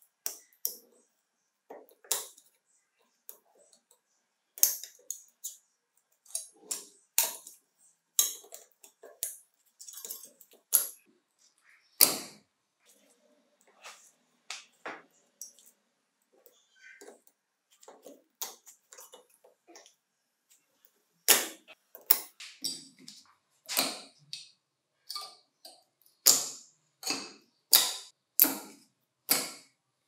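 Irregular sharp clicks and taps of hand tools and small hard parts of a battery pack being handled on a workbench. They are sparse and faint through the middle and come closer together and louder in the last third.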